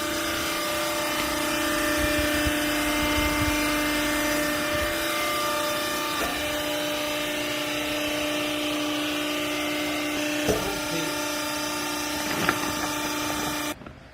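Hydraulic baling press running: a steady machine hum with a constant tone, with a couple of sharp knocks late on, cutting off suddenly near the end.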